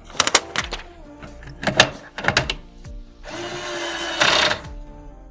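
Several sharp clicks and taps of PC parts being handled and fitted, then a small electric motor whirring steadily for about a second and a half, over soft background music.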